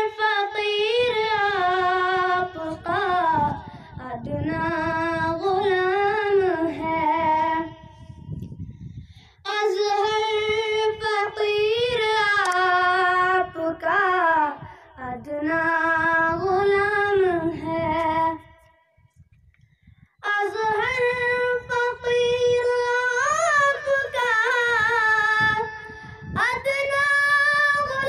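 A boy singing an Urdu naat (Islamic devotional poem) solo, without instruments, through a handheld microphone, in long melodic phrases with two short breaths between them.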